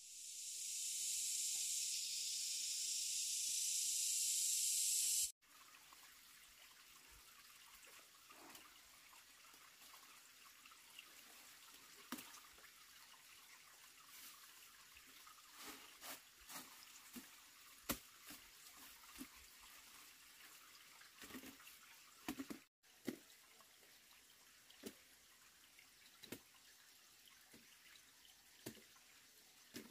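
A video-transition sound effect: a hiss that grows louder for about five seconds and then cuts off abruptly. After it comes a quiet outdoor background with scattered light clicks and knocks as freshly dug roots are handled by hand at a woven basket.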